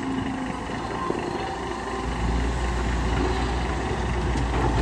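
Hydraulic excavator's diesel engine running under load as the machine lifts a full bucket of soil and swings it over a dump truck; the engine grows louder, with a stronger low rumble, about two seconds in.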